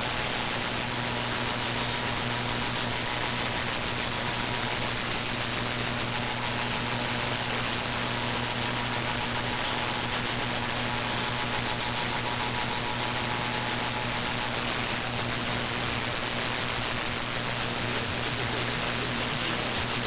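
AM radio reception through an online SDR receiver tuned to 1320 kHz: steady hiss and static with a low steady hum and no programme audio. A faint whistle fades out about two-thirds of the way through.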